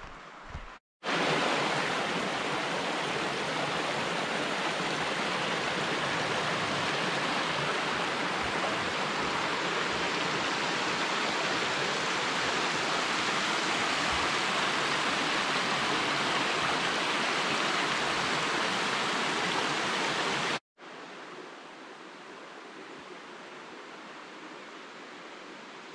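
Rushing water of a creek, a loud steady rush that cuts in abruptly about a second in and cuts off just as abruptly near the end, leaving only a faint hiss.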